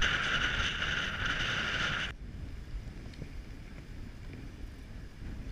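Strong wind buffeting the microphone, a loud rushing noise with a low rumble, that cuts off suddenly about two seconds in, leaving a much quieter low wind rumble.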